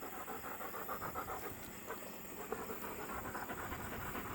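German Shepherd dogs panting quickly and rhythmically while standing still.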